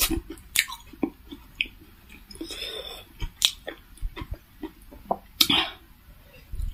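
Close-up mouth sounds of eating steamed veg momos: wet chewing and lip smacks, with two breathy rushes of air, about two and a half and five and a half seconds in. The momos are hot and chilli-spicy enough to burn the tongue.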